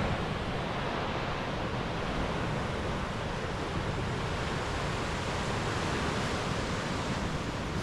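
Ocean surf breaking and churning against rocks in a cove below a sea cliff: a steady wash of noise.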